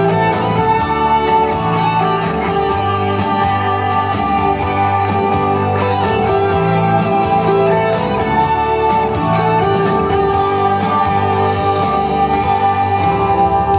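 Instrumental stretch of an upbeat pop song played over a PA: guitar over a steady drum beat. The beat drops out near the end.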